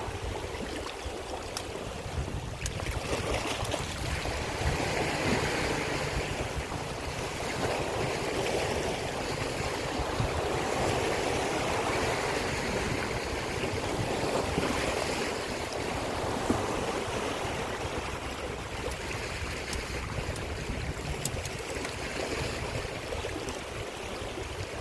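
Sea waves washing against a rocky shore: a steady rush of water that swells and eases every few seconds, over a low rumble.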